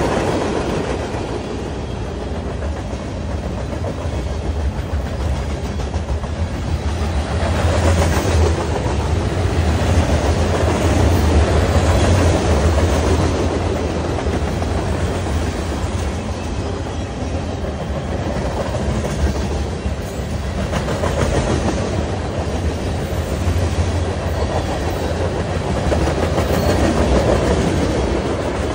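Freight cars of a Norfolk Southern mixed freight train rolling past: a continuous rumble of steel wheels on rail that swells and eases every few seconds as the cars go by.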